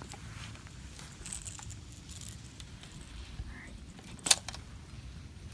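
Small clicks and rattles of a handled fishing rod and spinning reel, then one sharp, loud knock a little over four seconds in, a knock that did not sound good.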